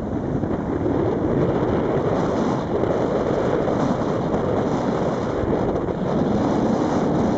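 Very strong wind buffeting the microphone: a loud, steady rush, heaviest in the low range and rising and falling slightly with the gusts.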